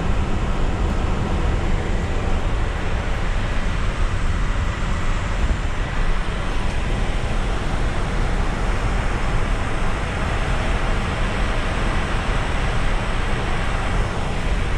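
Steady rushing cabin noise on the flight deck of an Airbus A350 in cruise flight, even and unbroken, heaviest in the low end.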